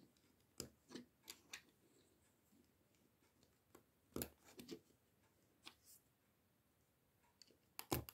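Faint, scattered clicks and taps of plastic LEGO bricks being handled and pressed together, with the sharpest pair of clicks near the end as a brick is pressed onto the top of the stall roof.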